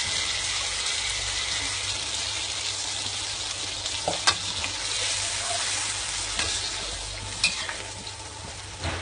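Sautéed onion, ginger, garlic and chilli sizzling in a hot pan with tamarind and shrimp-paste water just added: a steady hiss that slowly dies down. Two sharp clicks of a utensil against the pan, one near the middle and one later on.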